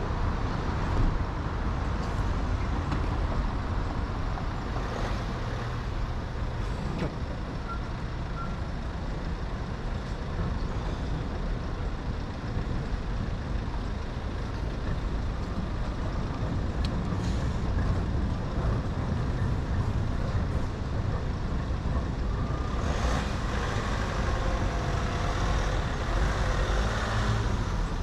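City road traffic heard from a moving bicycle: a steady low rumble of motor vehicles. A heavier vehicle's engine grows louder from about 23 seconds in.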